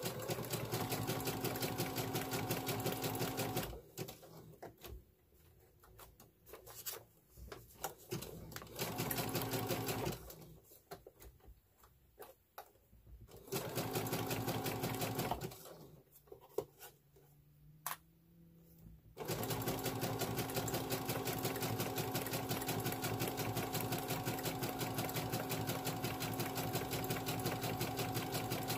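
Brother computerized sewing machine running a zigzag stitch, a fast steady patter of needle strokes over the motor hum. It sews in short runs that stop and start, with quiet pauses between, then sews steadily through the last third.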